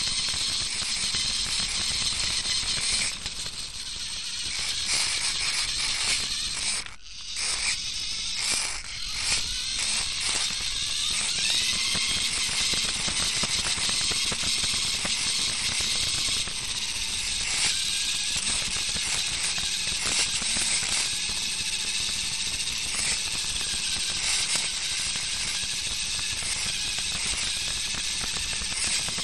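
A DIY RC car with a Fischertechnik frame driving over paving tiles, heard from a camera riding on the car: its electric drive rattles and whirs steadily. The sound drops away briefly about seven seconds in, then comes back choppy before settling.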